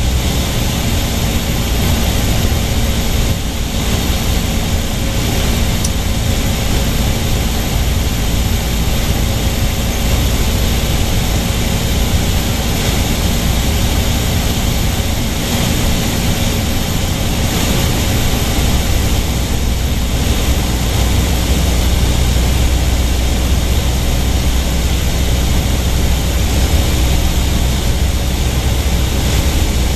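Cabin noise of a light propeller airplane in flight: the engine and propeller make a steady, loud, deep drone with air hiss over it, unchanging throughout.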